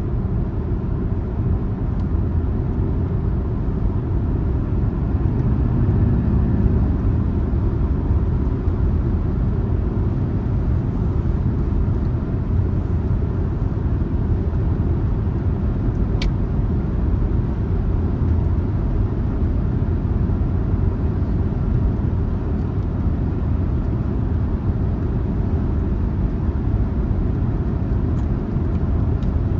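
Car driving along a road: a steady, deep rumble of road and tyre noise, with one sharp click about halfway through.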